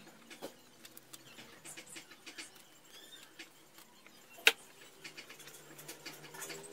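Hands pressing and smoothing tape along the edge of a wooden picture frame: small scratches and clicks, with one sharp click about four and a half seconds in.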